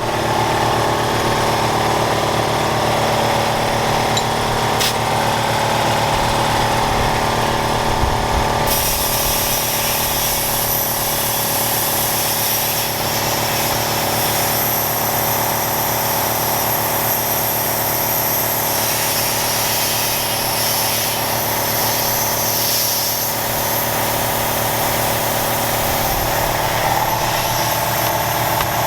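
An engine or motor running steadily, with a hiss over it that changes about nine seconds in.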